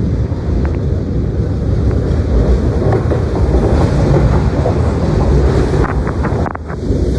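Fukuoka City Subway 2000 series train pulling into the platform and running past close by, a loud, steady rumble of wheels on rail with wind noise on the microphone. A few sharp clicks come near the end.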